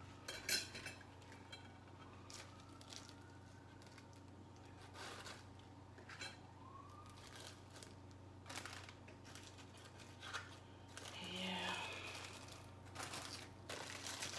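Faint scattered taps and clicks with light plastic crinkling, as of food packaging and kitchen things being handled; the sharpest click comes about half a second in.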